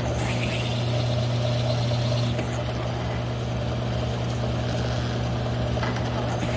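Mill-drill running a one-inch hole saw through 3/8-inch steel plate: a steady motor hum with a fainter high whine from the cut that rises in the first second and fades out a little over two seconds in.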